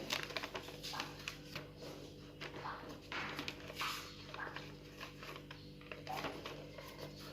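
Sheet of paper rustling and crackling in short, irregular bursts as it is handled and folded, over a steady low hum.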